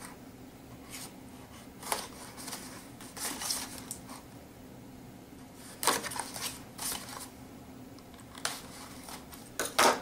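A pocket knife blade cutting the tape seals on a cardboard toy box, heard as scattered scrapes and clicks along with the cardboard being handled and turned. The sharpest sounds come about six seconds in and again just before the end.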